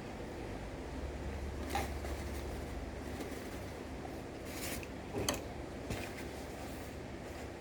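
A few light clicks and rustles of kitchen items being handled and put away, over a steady background hiss of rain.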